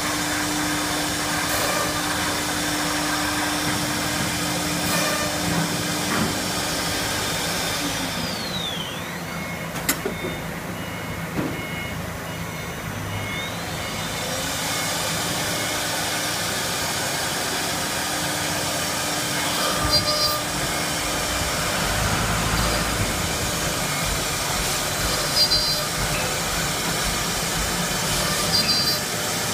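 Four-spindle wood CNC router running and cutting board: a steady whine and machining noise. About a third of the way in, one spindle's whine falls as it spins down, and a few seconds later a rising whine follows as another spindle spins up. A few sharp clicks come later.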